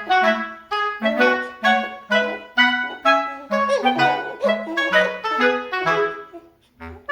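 Background music: a light woodwind-style melody of short, evenly spaced notes over a bouncing bass line.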